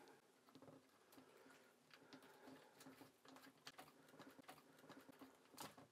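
Faint, irregular small clicks and rubbing as a puzzle's brass pin is twisted back and forth by hand.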